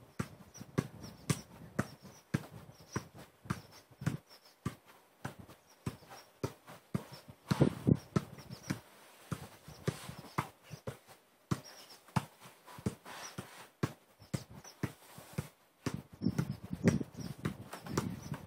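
Football (Adidas Tango 12) being juggled: a steady run of dull thuds as it is kicked up off foot, thigh and knee, about two touches a second, with a few harder kicks around the middle and near the end.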